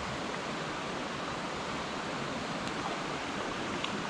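Steady rushing of a flowing creek, its water running over riffles.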